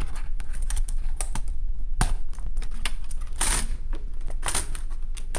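Laptop keyboard being lifted and handled out of a ThinkPad T430's chassis, its keys and plastic frame clicking and rattling irregularly, with a few louder clacks.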